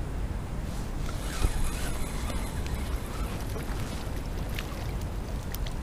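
Steady low rumble of wind and handling noise on a body-worn camera's microphone, with a few faint clicks and rustles as the angler handles the spinning reel.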